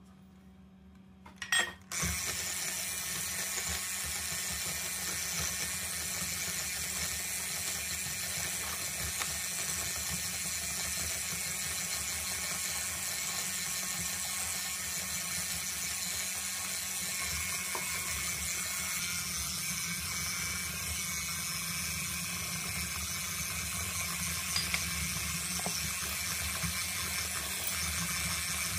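A brief clatter, then an electric hand mixer starts about two seconds in and runs steadily, its beaters creaming butter and sugar in a glass bowl.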